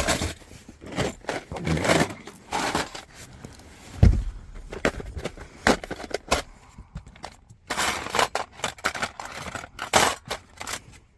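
Rummaging through loose metal tools and parts: irregular clattering, rattling and scraping, with one heavier thump about four seconds in.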